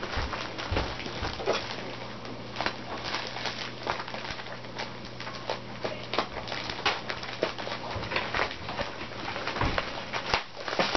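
Plastic bubble wrap crinkling and crackling as it is unwrapped by hand: a dense run of irregular sharp crackles.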